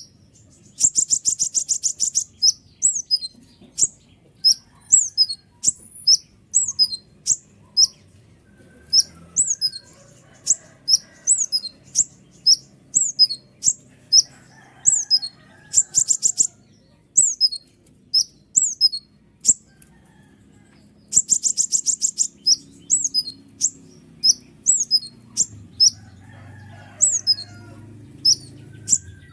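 Kolibri ninja sunbird singing a loud, busy series of sharp high chirps, about one to two a second, broken by rapid buzzing trills near the start, about halfway and about two-thirds through.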